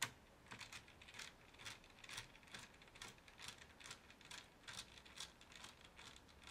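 Small screwdriver turning out a hard drive bay screw in a laptop's underside, with faint clicks about twice a second as the driver is turned.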